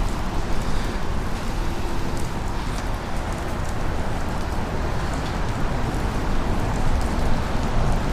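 Steady rushing noise with faint scattered ticks, even in level throughout.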